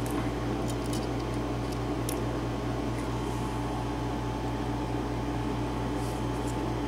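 Small air conditioner running with a steady hum and drone, with a few faint light clicks over it.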